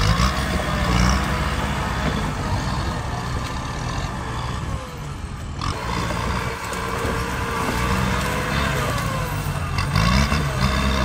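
Kubota tractor diesel engine working under heavy load as its front dozer blade pushes into a hard termite mound. The engine note wavers, dips briefly about halfway through, and revs up near the end.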